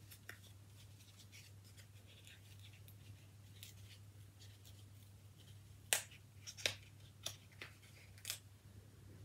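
A small cardboard soap box being opened by hand: faint paper rustling, then a few sharp clicks and snaps in the second half as the flap is worked open, over a steady low hum.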